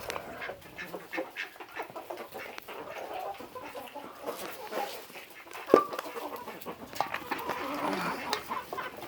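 Backyard chickens clucking softly while they eat, with scattered small clicks and one sharp knock a little past halfway.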